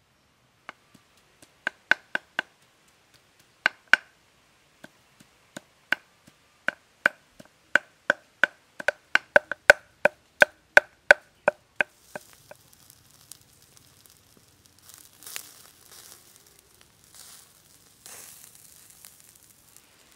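Cleaver chopping on a wooden chopping block: sharp knocks that come unevenly at first, then speed up to about three a second before stopping about twelve seconds in. After that comes a faint hiss and crackle of a chicken grilling over a charcoal fire.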